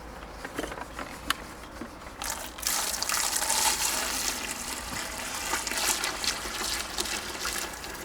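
Water pouring and splashing onto a wall, starting about two and a half seconds in and running steadily for about five seconds, with a few small knocks before it. The water is wetting freshly cemented work on a wall corner.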